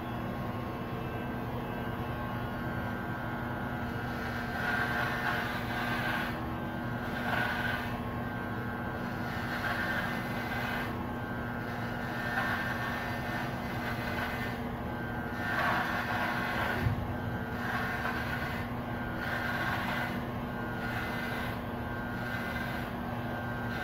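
Corded electric hair clippers running with a steady buzzing hum, the tone changing briefly every second or two as the blades are pushed through short hair.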